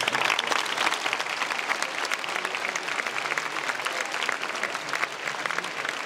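Audience applause breaking out suddenly for a just-finished speedcubing solve, a dense clatter of many hands clapping that keeps up throughout.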